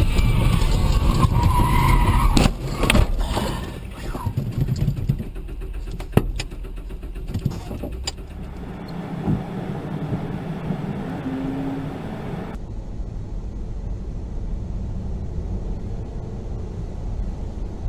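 Road and engine noise inside a moving car's cabin, with several sharp knocks in the first half. About two-thirds of the way through the sound switches to a duller, steadier traffic rumble.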